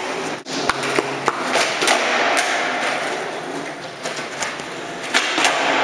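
Skateboard wheels rolling on a concrete floor with a steady rumble, broken by several sharp clacks of the board.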